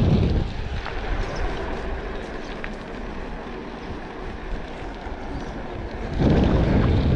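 Low, gusty rumble of wind buffeting the microphone, strong at the start, easing off, then strong again from about six seconds in, with a few faint ticks.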